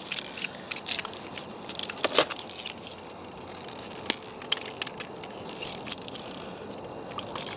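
Small metallic clicks and clinks from a camp stove and its metal cook kit being handled, irregular and high-pitched, with one sharp click about four seconds in.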